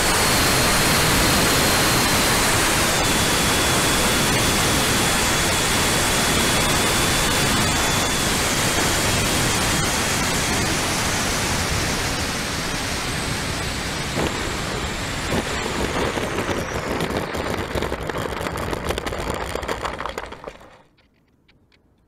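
Twin 70 mm electric ducted fans of an RC jet model heard through the onboard FPV microphone: a dense rushing hiss with a thin whine that steps down in pitch over the first ten seconds. The sound thins out with a few crackles and then cuts off about twenty seconds in, as the plane is down on the grass.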